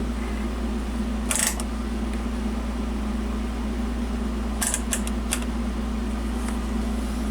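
A steady low hum runs throughout, with a few brief light clicks about a second and a half in and again around five seconds in.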